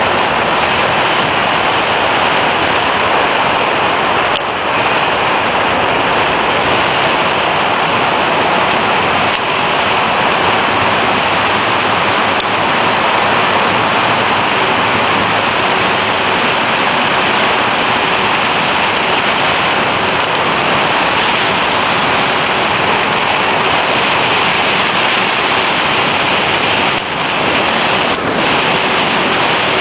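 Loud, steady rush of wind across the microphone of a moving motor scooter, with the scooter's running noise mixed in.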